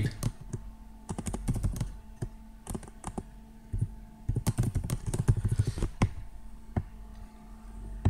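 Computer keyboard typing: keystrokes tapped in irregular bursts with short pauses between them.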